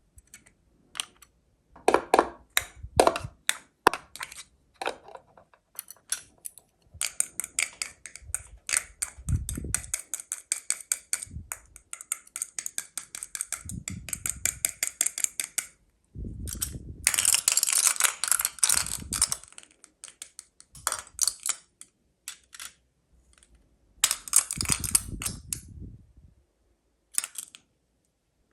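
Small plastic toys and their packaging being handled: scattered sharp clicks and taps of hard pieces set down and knocked together, with several stretches of dense, rapid rustling or rattling lasting a few seconds each.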